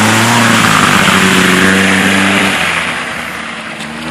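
Toyota pickup's engine running hard as it ploughs through a deep mud puddle, its pitch rising a little at first, over the rush of splashing muddy water. The sound fades from about two and a half seconds in as the truck drives away.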